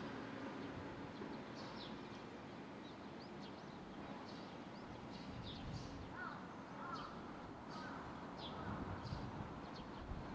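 Fledgling barn swallows calling while they wait to be fed: short, high chirps scattered through the whole stretch over a steady background noise. A few lower, wavering calls come in about six to eight seconds in.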